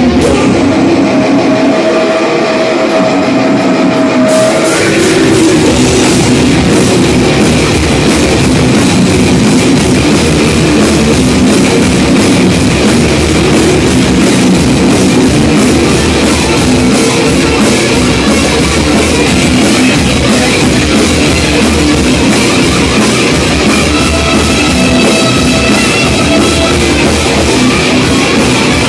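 Live heavy metal band playing loud distorted electric guitars. For the first few seconds a guitar rings with little bass; then the full band with drums and low end comes in, about four seconds in, and plays on steadily.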